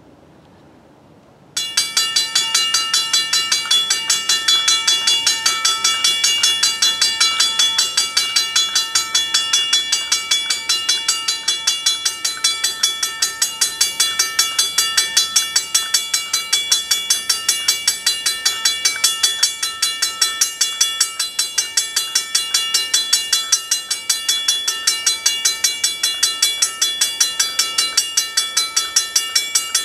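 Railroad grade-crossing bell that starts suddenly about a second and a half in and rings steadily at about three strokes a second. The crossing has been set off by an approaching train.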